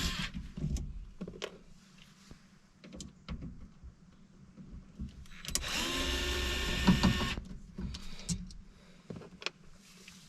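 Cordless drill-driver spinning up and running for under two seconds as it backs a screw out of the sliding-door trim panel, with light clicks and taps from handling before and after.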